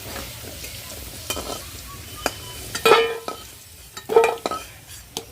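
Fried potato pieces sizzling in hot oil in a kadai while a metal spatula scrapes and knocks against the pan as they are lifted out. The loudest ringing knocks come about three and four seconds in.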